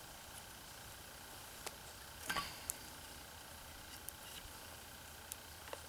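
A knife blade is pressed and worked into the end of a wooden axe handle to split a slot for the wedge. There are faint small clicks and creaks of wood, with one brief scrape a little over two seconds in.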